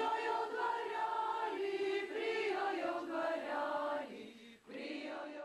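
A choir singing slow, sustained chords, with a brief break about four and a half seconds in.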